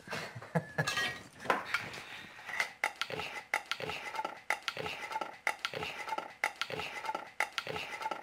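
A knife scraping and clinking inside a peanut butter jar in a steady rhythm, about two strokes a second.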